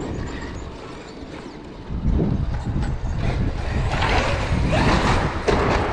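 Traxxas X-Maxx electric RC monster truck running over pavement. It gets much louder about two seconds in, with the motor's pitch rising and falling, and a few sharp knocks near the end that fit the truck landing or hitting something.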